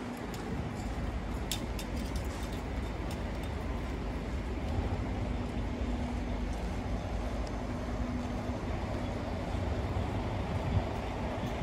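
Steady low rumble of city street noise, like traffic, with a faint steady hum and a few light clicks in the first few seconds.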